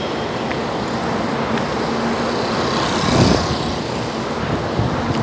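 City street traffic noise: a steady rumble of passing cars, swelling louder about three seconds in as a vehicle goes by.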